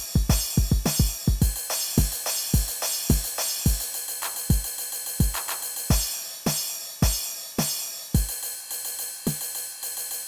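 EGDR909 drum machine app, an emulation of the Roland TR-909, playing a drum pattern: deep kick drum hits under steady hi-hats and cymbals. The kicks come thick and fast at first, thin out to about two a second through the middle, then pick up again.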